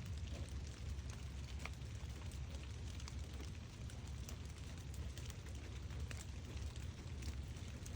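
Steady summer rain falling, with many separate drops ticking and pattering on surfaces over a constant low rumble.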